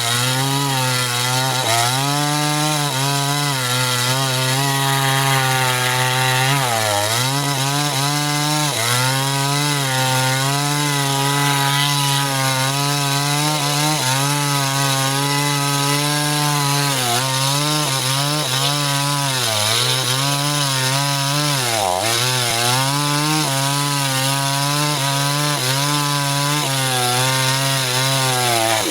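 Two-stroke chainsaw running at high revs while cutting through an old sengon log. Its engine note holds steady and dips briefly now and then.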